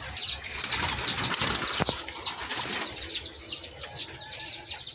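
Many small birds chirping rapidly: short, high-pitched falling notes several times a second, over a rustling haze, with a single sharp knock about two seconds in.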